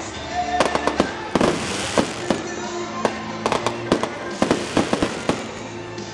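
Aerial fireworks going off in quick, irregular bangs and crackles, with music playing underneath.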